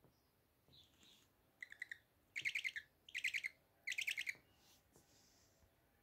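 A week-old Eurasian eagle-owl chick calling: four short bursts of rapid, high chittering, each about half a second long, starting a little under two seconds in.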